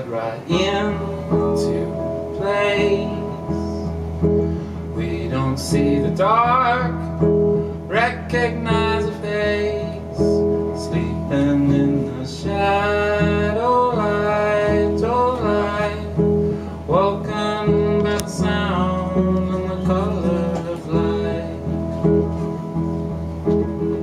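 Live solo song: a man singing over a picked hollow-body guitar played through an amplifier, with a steady low drone underneath.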